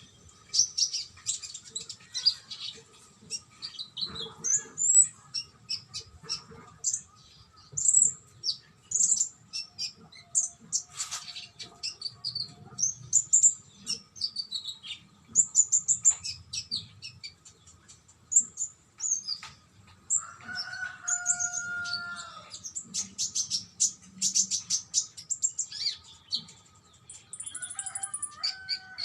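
A konin songbird singing at length in busy runs of rapid, high chirps and trills, broken by short pauses, with a few lower drawn-out whistled notes about two-thirds of the way through.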